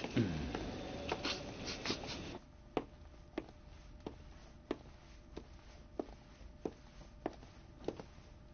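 Busy commercial-kitchen noise with a few clatters for about two seconds. It cuts off, then a person walks at a steady pace, one footstep about every two-thirds of a second.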